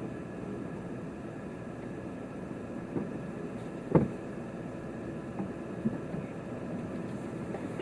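Steady road and engine noise heard inside a moving car's cabin, with a sharp knock about four seconds in and a couple of fainter ones.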